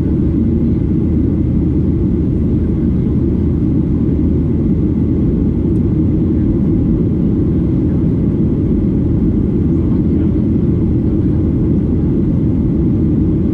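Steady low rumble of a Boeing 737-800's CFM56-7B engines and airflow heard inside the cabin in flight, unchanging throughout.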